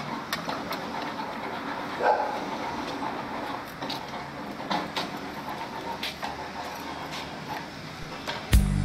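Scattered light metal clicks and knocks as a circular saw blade is handled and fitted onto the arbor of a saw-blade grinding machine, with a short call about two seconds in. Music starts near the end.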